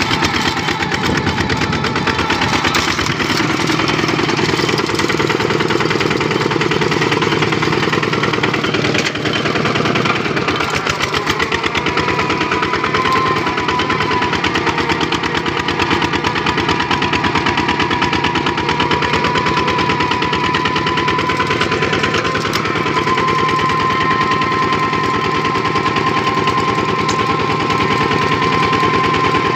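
Kubota RT-series single-cylinder diesel engine of a two-wheel tractor running while pulling its trailer, a loud, fast, even chugging of exhaust beats. A steady high whine joins about twelve seconds in.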